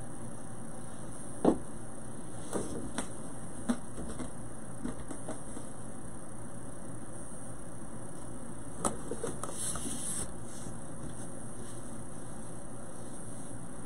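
Steady room hum with a few scattered light knocks and clicks, the loudest about a second and a half in.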